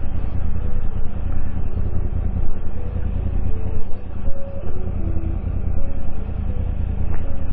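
Motorcycle engine idling while stopped, a steady low rumble.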